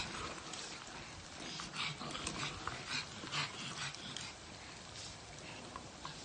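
Chicken pieces sizzling in hot oil in a small electric deep fryer as a wire skimmer stirs and lifts them, with a dog making small noises close by.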